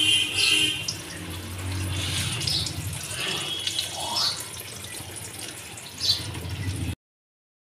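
Whole brinjals (eggplants) sizzling and crackling as they fry in hot oil in a kadai, a steady frying hiss. The sound cuts off suddenly about seven seconds in.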